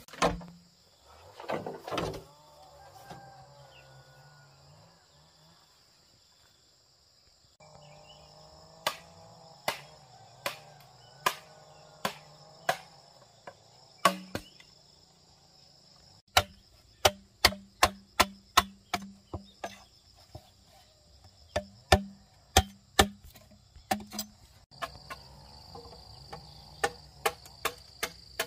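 Machete striking green bamboo poles with short, sharp, hollow knocks. At first about one strike a second, then faster runs of two or three a second. A steady high drone of insects runs underneath.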